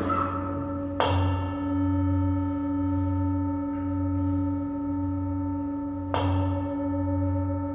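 Meditation singing bowl struck three times: near the start, about a second in, and again about six seconds in. Each strike leaves a long, steady ring of several overlapping tones, with a low hum that pulses slowly underneath.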